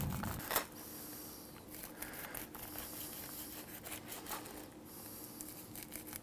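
Chef's knife slicing kernels off a grilled corn cob on a plastic cutting board: a sharp tap about half a second in, then repeated quiet rasping strokes.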